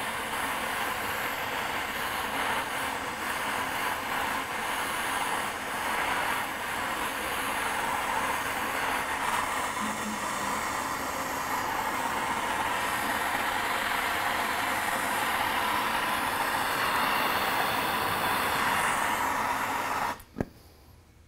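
Hand-held gas torch burning with a steady hissing flame while it heats a copper pipe and a brass valve's solder cup for soldering. The flame noise cuts off suddenly about twenty seconds in.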